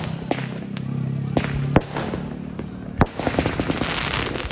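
Fireworks going off, with single sharp bangs every half second or so. From about three seconds in come dense crackling reports of many small bursts.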